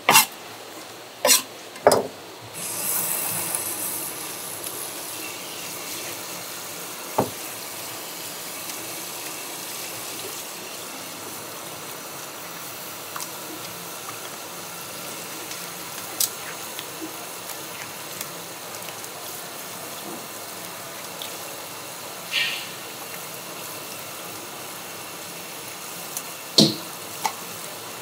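Tap water running steadily into a sink, turned on a few seconds in, with a few sharp knocks from handling before it starts and now and then while it runs.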